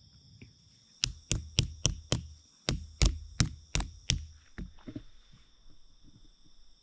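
A quick series of about a dozen sharp knocks, roughly three a second, stopping about five seconds in, over a steady chorus of crickets.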